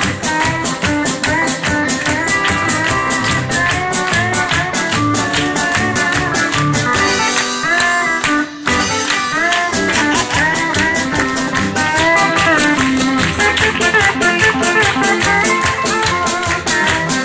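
Live country band playing an instrumental over a steady drum beat, with a Zum pedal steel guitar carrying gliding, bending notes. The band breaks off briefly about eight seconds in.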